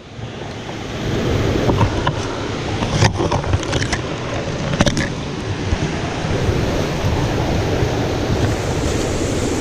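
Steady rush of a small creek's water running over rocks, with a few faint clicks about two, three and five seconds in.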